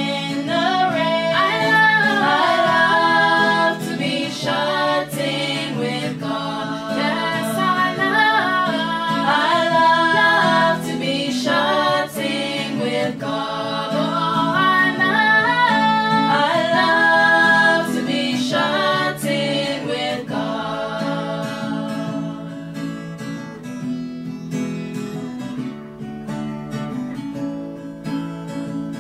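Choir singing a hymn with guitar accompaniment. The voices stop about twenty seconds in, and the guitar plays on alone, fading out near the end.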